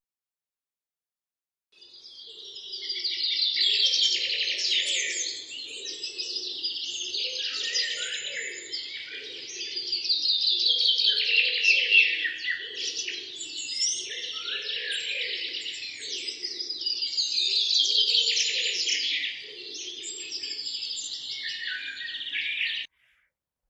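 Birds chirping and singing in dense, rapid trilling phrases that swell and fade several times, with a lower pulsing call beneath. The sound starts about two seconds in and cuts off abruptly near the end.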